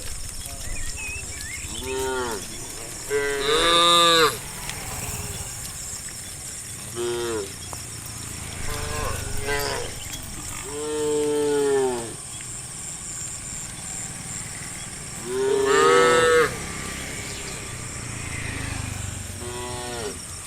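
Cows mooing, about eight separate calls, each a pitched moo that rises and falls, the loudest about four seconds in and again past the middle. A steady high hiss runs underneath.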